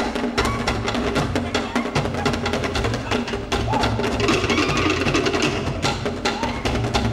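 Cook Islands drum ensemble playing a fast, driving rhythm for a drum dance: rapid, sharp strikes on wooden slit drums (pate) over a deep, pulsing bass drum.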